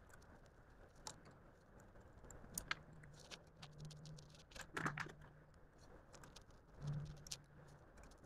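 Faint, scattered metal clicks and light clinks of a socket extension and bolts as harmonic balancer bolts are threaded in by hand, the loudest click about five seconds in.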